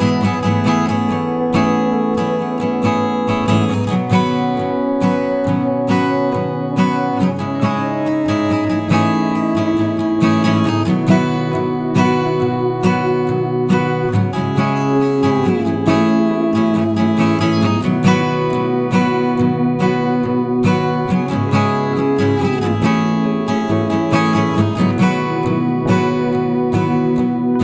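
Background music led by strummed and plucked acoustic guitar, with a steady rhythm and occasional sliding notes.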